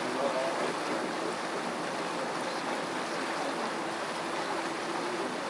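Steady wash of river water rushing along the side of a moving boat and its wake.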